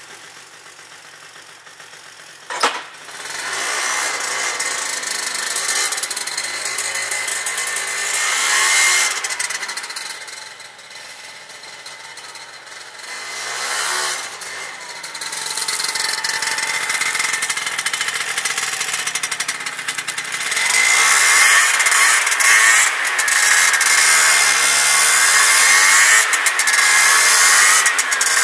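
Two-stroke 50cc scooter engine with a Yasuni Z tuning exhaust being ridden and revved, its high, buzzing note rising and falling in pitch several times. It is quiet at first, with a single knock about two and a half seconds in, and it is loudest in the last third.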